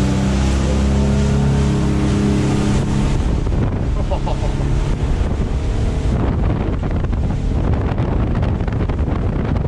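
Boat's 2007 Suzuki 300 hp four-stroke V6 outboard running at speed, a steady drone for about three seconds that then sinks under heavy wind buffeting on the microphone and rushing water from the hull and wake.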